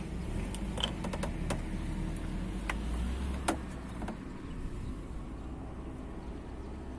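Small plastic clicks and taps from the cap and can of an engine flush additive as it is opened and tipped into an engine's oil filler neck. There is a quick cluster of clicks in the first second and a half, a couple more later, and the sharpest click about three and a half seconds in, over a low steady rumble.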